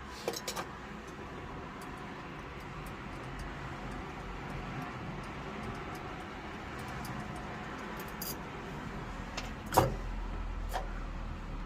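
Small clicks and taps of boiler valve parts being handled over a steady background hiss, with one sharp click about ten seconds in.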